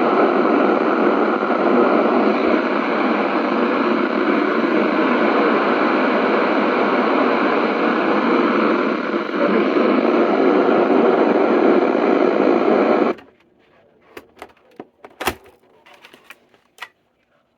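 Weather radio receiver putting out a steady, loud static hiss with no voice on the channel. The hiss cuts off abruptly about thirteen seconds in, leaving only a few faint clicks.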